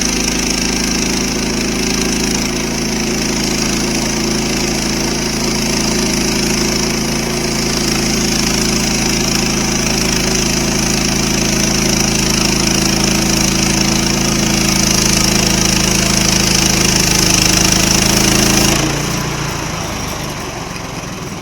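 Sawmill engine running steadily under power. About two seconds before the end its note drops and it gets quieter.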